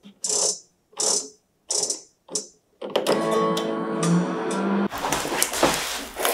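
Balmuda microwave oven playing its guitar-sample operating sounds: four short plucked notes as its dial is turned to set the time, then a longer held guitar phrase about three seconds in as heating is started. Handling noise and clicks follow near the end.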